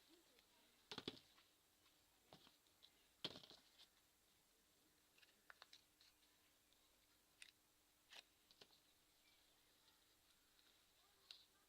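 Scattered small clicks and ticks of hand tools on a mobile phone's plastic housing and parts as it is being prised open, the loudest about three seconds in.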